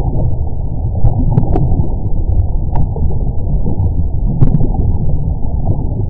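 Undersea magma sound effect: a loud, deep, muffled rumble that churns on without a break, with a few sharp crackles scattered through it.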